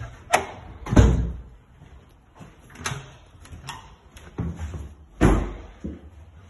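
Irregular knocks and thumps of an interior door being opened and bumped while passing through it, mixed with handling knocks on the phone. The loudest thump comes about a second in, and another past the five-second mark.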